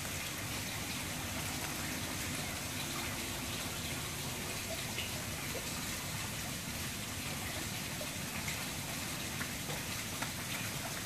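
A steady, water-like hiss, like rain or running water, with a few faint ticks scattered through it.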